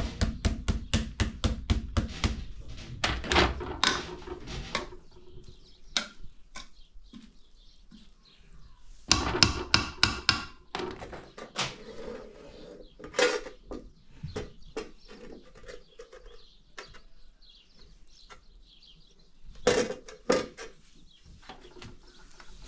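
Metal spoon scraping and knocking against a metal cooking pot as boiled rice is scooped out, starting with a quick run of clicks at about four a second. Scattered scrapes and knocks follow, with louder scraping bursts a few seconds in, near the middle and near the end.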